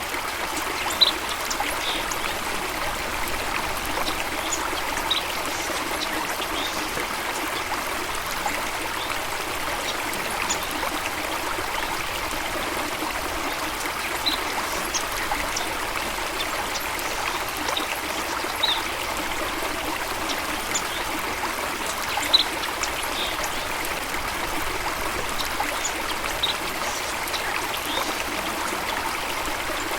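Running water of a stream or waterfall, a steady rushing and trickling, with brief high bird chirps every few seconds.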